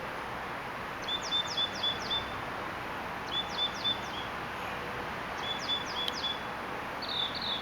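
A songbird singing the same short phrase four times, about every two seconds, each a quick run of high falling notes. The last phrase starts near the end. A steady background hiss of outdoor noise runs underneath.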